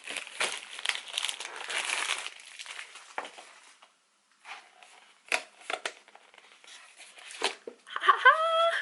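Plastic packaging of an instant buldak tteokbokki pack crinkling and tearing as it is opened, followed by scattered rustles and clicks as it is handled. A short vocal sound rises in pitch near the end.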